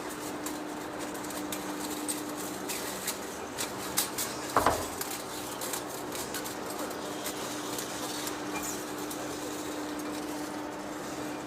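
A machine's steady hum with scattered light metallic clinks and one louder knock about four and a half seconds in.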